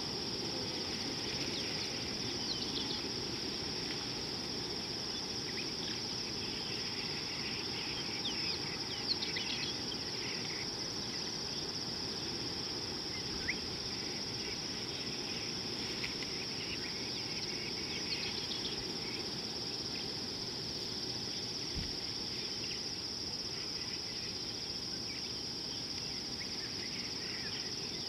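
Steady high-pitched insect drone, with short bird chirps here and there, over low steady background noise.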